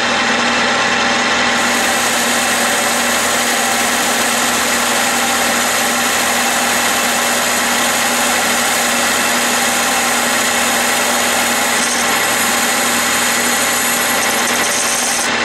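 Clausing metal lathe running at about 600 RPM while its tool takes a roughing pass on a pulley hub under power feed. The motor and spindle give a steady hum, and a hiss of cutting starts about a second and a half in and stops just before the end, with chatter as the tool comes into the corner.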